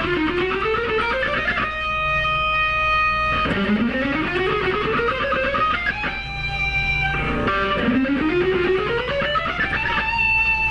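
Electric guitar playing fast ascending scale runs, three in a row, each climbing steadily and ending on a held, ringing note.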